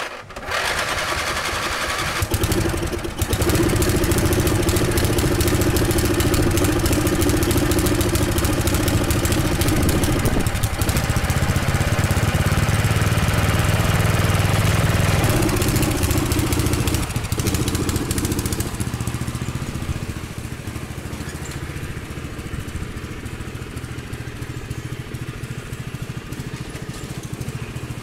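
Craftsman riding lawn mower's engine starting and running steadily, then growing fainter in the last third as the mower drives off.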